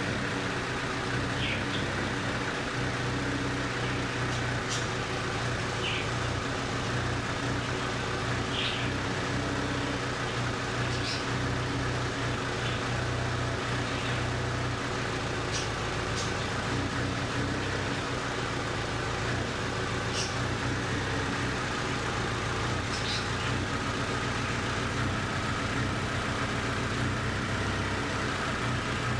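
2008 Hyundai Sonata 2.4-litre four-cylinder petrol engine idling steadily with an uneven low pulse, the rough idle of a cylinder misfire.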